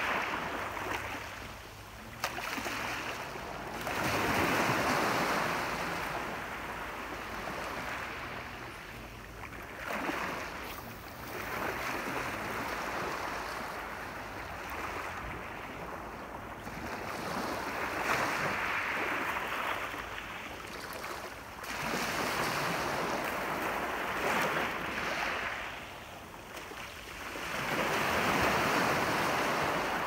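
Small sea waves breaking and washing over a pebble beach, the surf hiss swelling and fading every few seconds as each wave comes in and draws back.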